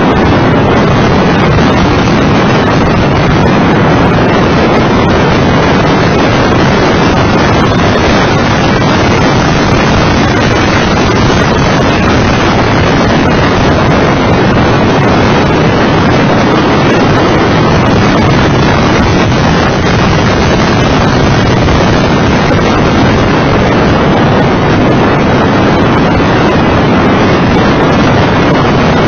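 Mitsubishi FTO GPX's V6 engine and tyres at track speed, largely buried under loud, steady wind buffeting on the microphone.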